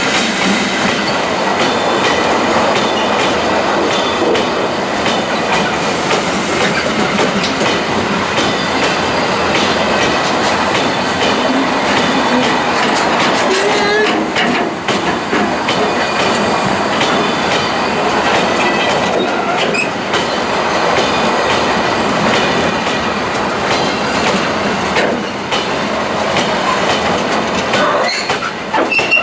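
A train running past at close range: a loud, steady rumble of wheels on rails with clickety-clack over the rail joints and faint high squealing tones above it.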